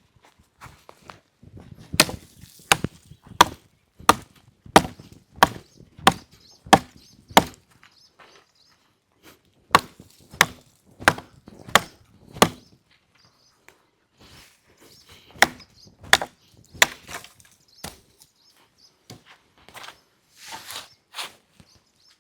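Repeated chopping strikes on wood, about one and a half a second, in runs of several blows with short pauses between, the last few softer.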